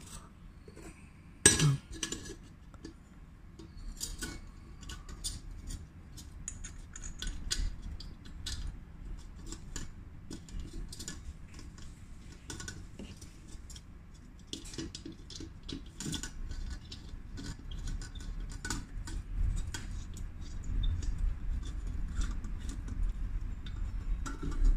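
Scattered light metallic clinks and taps as the Coleman 533 stove's steel burner parts are handled and fitted back onto the burner, with one sharper clink about one and a half seconds in.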